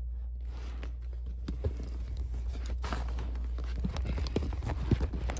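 Irregular light taps and knocks of objects being handled, over a steady low hum.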